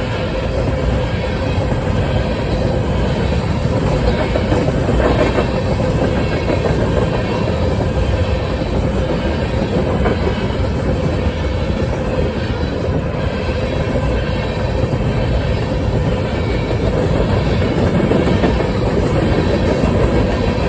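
Freight train of grain hopper cars rolling past: a steady, loud rumble of steel wheels on rail with the clickety-clack of wheels over rail joints and a faint steady hum.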